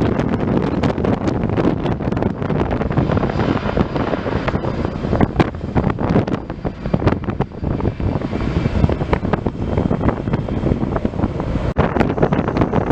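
An airliner's engines at the airport, heard through heavy wind buffeting on the microphone, with a faint high steady tone in the middle few seconds.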